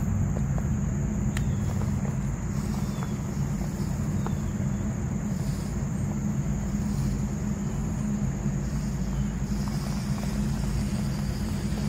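A custom-built SCX24 1/24-scale RC rock crawler running: its small electric motor and gears give a steady high whine over a low rumble, with a few faint ticks as the tyres climb over rock.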